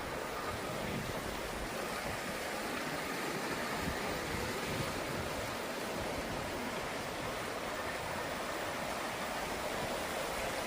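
Mountain stream rushing over rocks, a steady unbroken rush of water.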